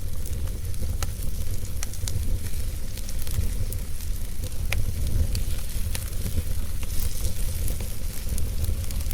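Wood fire burning in a fireplace, crackling with irregular small pops over a steady low rumble.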